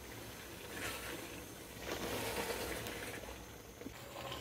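Silicone spatula stirring thick chicken and chickpea curry in a cooking pot: faint wet stirring and cooking noise that swells about a second in and again from about two to three seconds.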